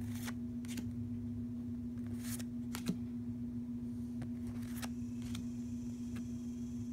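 Pokémon trading cards being moved one behind another by hand: several short, soft swishes and clicks of card sliding against card, over a steady low hum.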